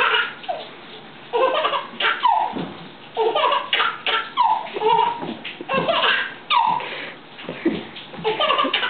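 A baby laughing in repeated bursts of belly laughs and giggles.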